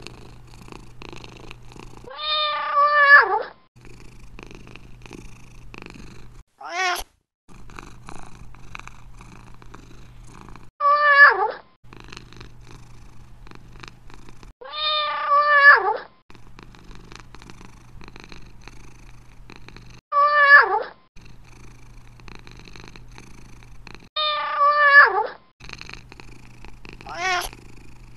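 Domestic cat purring steadily, broken about every three to four seconds by a meow. There are seven in all: most are long meows falling in pitch, and two are short high ones.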